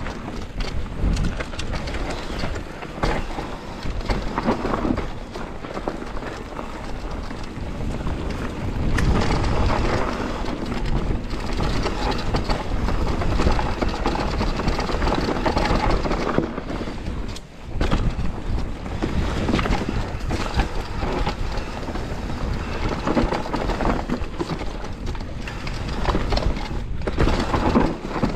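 Enduro mountain bike riding down a rough, steep trail: a continuous rumble of tyres over dirt and rocks, with many rattles and knocks from the bike. The noise eases briefly a little past halfway.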